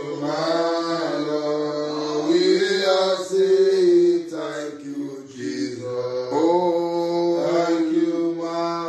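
A man singing a slow, chant-like praise song alone, in long held notes that bend up and down, with short breaks for breath.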